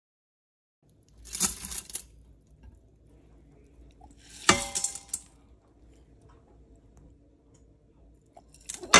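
Dry lentils poured from a bowl into the stainless steel inner pot of an Instant Pot, rattling and hissing against the metal in short pours: one about a second in, a louder one about four and a half seconds in, and another starting at the very end.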